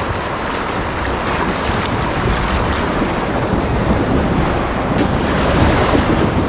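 Water rushing and splashing as a Ford pickup truck fords a shallow rocky river, with the flowing current loud and close to the microphone. The splashing grows slightly louder near the end as the truck passes close.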